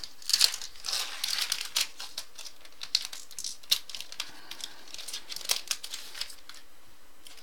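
Crinkling and tearing of a trading-card pack wrapper being opened by hand, dense for the first couple of seconds, then scattered crackles that die out about six seconds in.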